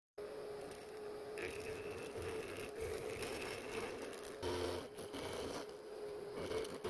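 Milling machine cutting a block of aluminium: a steady whine from the spindle and cutter over the hiss of the cut, which grows louder and rougher for a moment about four and a half seconds in.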